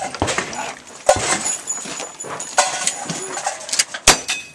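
Shotgun fired three times: two sharp shots close together near the start and a third near the end, with faint voices between.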